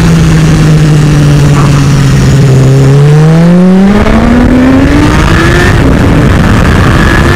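BMW S1000RR sportbike's inline-four engine, its pitch falling off for about three seconds as the bike slows through a bend, then revving up hard as it accelerates out. The pitch breaks and drops briefly about six seconds in as it shifts up, then climbs again. Wind rushes over the microphone.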